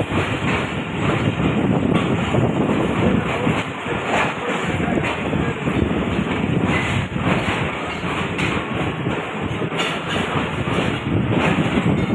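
Passenger train carriages rolling on the track, a steady rumble with some clatter of the wheels.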